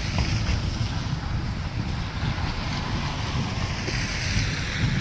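Wind buffeting the microphone in a snowfall as a low, gusty rumble, with the hiss of car tyres on a snowy road swelling and fading as traffic passes.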